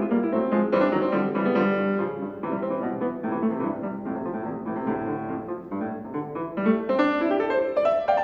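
Steinway concert grand piano played solo: a busy classical passage of quick notes, with a rising run near the end.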